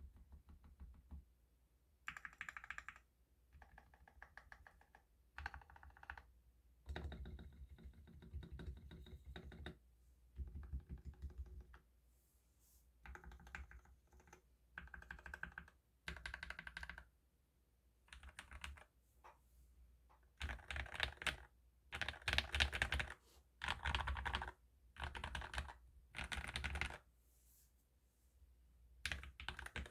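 COX Pinnace mechanical keyboard with lubed JWK Black linear switches being typed on: bursts of quick keystroke clacks a second or two long, separated by short pauses, with the loudest bursts in the later half.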